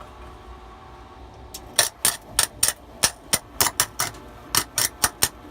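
A quick, irregular run of about fourteen sharp metallic cracks or taps on the steel being welded, starting nearly two seconds in and stopping just before the end.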